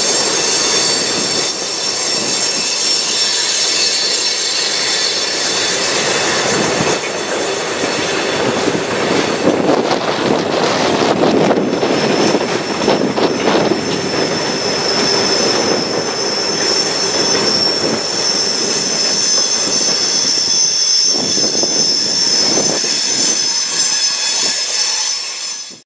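Freight train cars rolling past: steady high-pitched wheel squeal over the rumble of steel wheels on rail, the squeal strongest in the second half. The sound cuts off suddenly at the very end.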